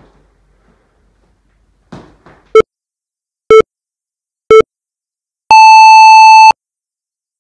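Electronic countdown timer beeps: three short beeps about a second apart, then one long, higher-pitched beep lasting about a second, marking the start of a 60-second timed set.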